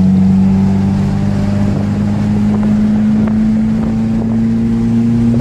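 Toyota 3S-GE inline-four engine running under way, heard from inside the car's cabin: a steady drone whose pitch rises slowly as the revs climb, with some wind noise.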